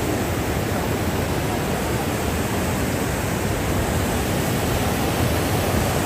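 Muddy river water pouring over a concrete weir as a wide sheet of white water: a steady, even rushing.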